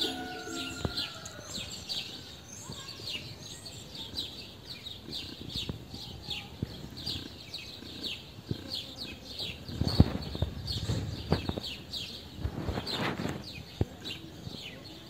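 Small birds chirping repeatedly in short falling chirps, a few a second. A few low thumps and rumbles break in about two-thirds of the way through.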